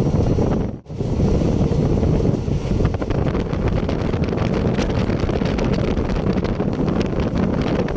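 Passenger train running at speed: a steady low rumble with wind buffeting the microphone, and rail clicks joining in from about three seconds in.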